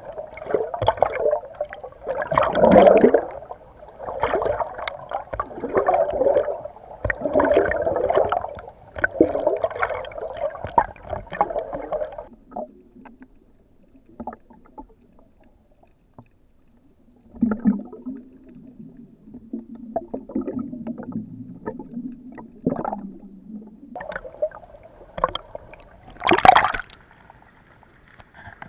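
Muffled sloshing and gurgling of water heard through an underwater camera, surging every second or two for the first dozen seconds. Then it goes quieter, with a low steady hum for several seconds and a sharp loud burst near the end.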